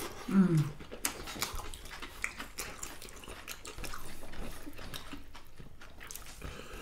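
Wet eating sounds of rice and watery masoor dal being mixed and eaten by hand: chewing, lip smacks and squelches, with many small clicks. A brief voiced 'mm' with falling pitch comes just after the start.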